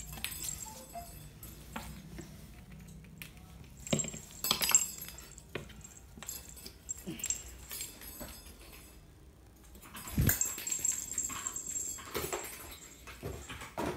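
A cat playing with a small plastic ball toy, its paws and the toy making scattered knocks and taps on the wooden floor and cabinet. The loudest is a single thump about ten seconds in.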